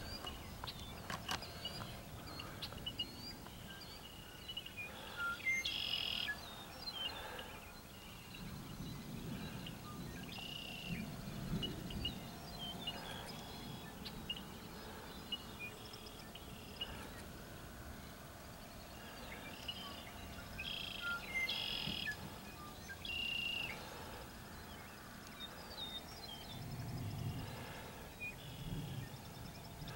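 Birds chirping and calling in short scattered phrases, over a low outdoor background with a few soft low rumbles now and then.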